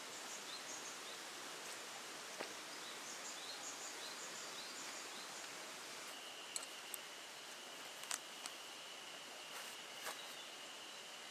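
Forest ambience: a steady background hiss with small birds chirping in quick repeated notes through the first half, then a thin steady high tone. In the second half come several sharp clicks and rustles of nylon camping gear being handled and packed.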